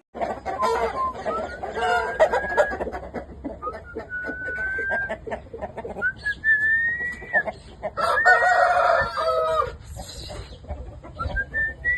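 A flock of Aseel chickens: roosters crowing several times in long drawn-out calls, over a jumble of clucking and squawking that is loudest near the start and again about eight seconds in.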